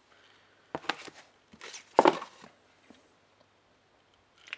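Paperback books being handled: a few short knocks and scrapes as one book is put away and the next picked up, the loudest about two seconds in.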